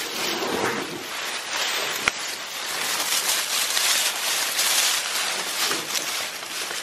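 Tall grass and dry stalks rustling as they are pushed aside by hand close to the microphone, with one sharp click about two seconds in.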